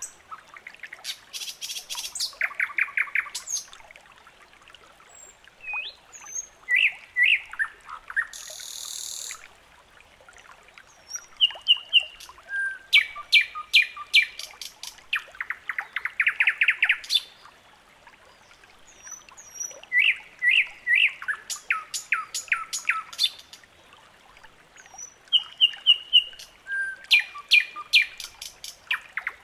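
Songbirds chirping and trilling in bursts of rapid repeated notes, with quieter gaps between the bursts.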